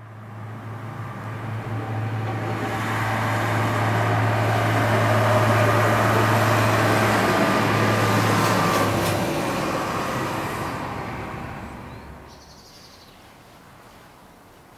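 A road vehicle passing by: its tyre and engine noise swells over several seconds, with a steady low hum beneath, then fades away about twelve seconds in.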